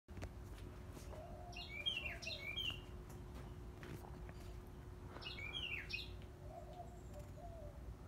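Bewick's wrens calling: two short bursts of quick, sharp chirps, about one and a half seconds in and again about five seconds in.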